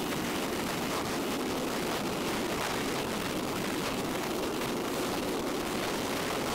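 Steady rush of wind and road noise from a KTM 890 Adventure motorcycle under way, with an even level throughout.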